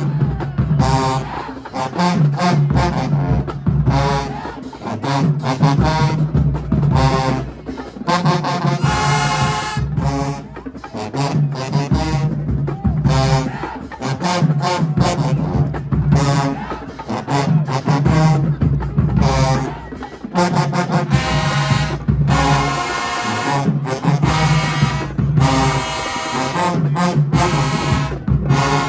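A marching band playing: brass horns over a steady beat of drums, with a low repeating bass figure and frequent sharp drum strikes.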